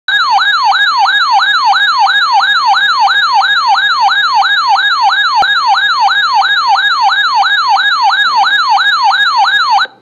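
Weather radio receiver's built-in warning alarm: a loud electronic siren of fast repeating falling whoops, about three a second, that cuts off suddenly near the end. It is the alert that the receiver sounds when it picks up a warning-level message, here a flash flood warning.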